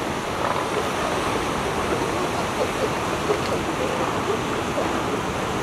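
Steady rush of ocean surf, with a few faint short calls over it.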